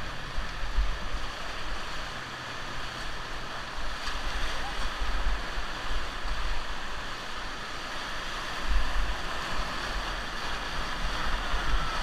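Whitewater rushing and churning around a raft surfing in a river hole, a steady noise, with low uneven rumbles of wind buffeting the microphone.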